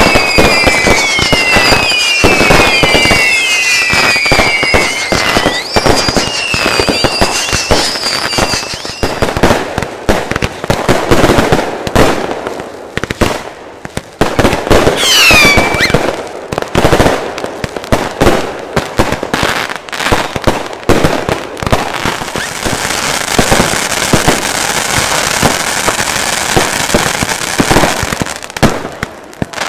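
Consumer fireworks going off in rapid succession: dense bangs and crackles. A string of whistles falls in pitch during the first six seconds, one rising whistle comes about fifteen seconds in, and a steady crackling hiss runs from about 22 to 28 seconds.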